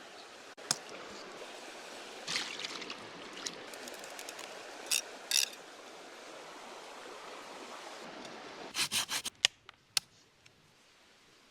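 Steady rush of running water with scattered short scrapes and clicks, then a quick run of sharp clicks about nine seconds in; the rush drops away after that.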